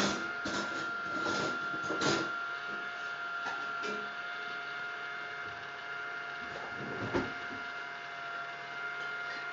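Small mushroom-shaped mini table vacuum cleaner running with a steady high whine from its little motor. There are clicks and rattles as it is moved over the table in the first two seconds and again about seven seconds in.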